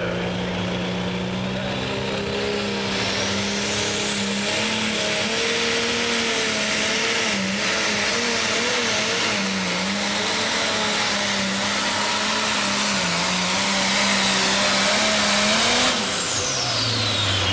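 Light Pro pulling tractor's turbocharged diesel engine at full power pulling a weight-transfer sled. A high whine climbs over the first several seconds and holds, with the engine note wavering underneath. About sixteen seconds in the engine comes off power and the whine drops away quickly.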